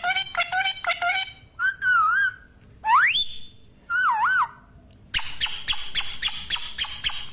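Green parrot calling: a fast run of sharp, chattering calls, then a few separate whistles, one rising steeply and one warbling up and down, then another fast run of calls in the last couple of seconds.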